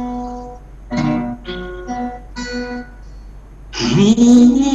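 Acoustic guitar played solo as the intro to a song: single picked notes ring out one after another. A louder, fuller sustained note swells in near the end.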